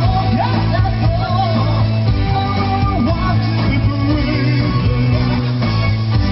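Live amplified pop song: a woman singing over keyboard accompaniment with a steady low bass.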